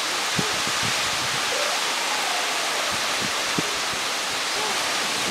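Strong wind rushing through palm trees: a steady, loud hiss, with a few short low bumps of gusts hitting the microphone.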